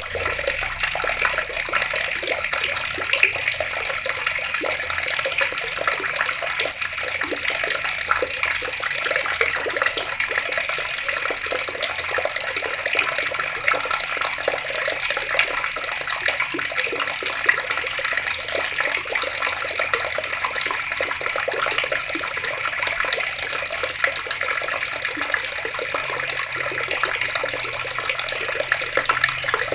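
Water tap running steadily outdoors, a continuous even rush of flowing water.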